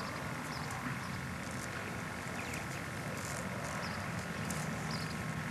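Steady hiss and hum of an old camcorder's soundtrack recorded outdoors, with a few faint, short, high chirps scattered through it.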